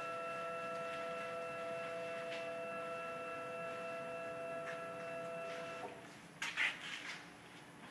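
Steady electric whine from a CNC router machine at rest after a cut, cutting off abruptly near six seconds in. A short clatter of knocks and clicks follows.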